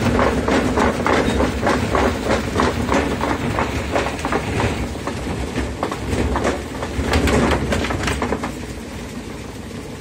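Electrolux LAI17 17 kg top-load washing machine spinning an unbalanced load, its tub knocking in a fast rhythm, about three knocks a second, as the suspension struggles with the load. The knocking and running die down near the end as the spin is stopped.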